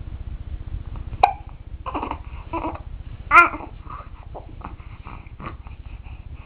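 A one-month-old baby hiccuping: a short sharp hic about a second in, with small vocal sounds between the hics and a louder brief squeal about halfway through.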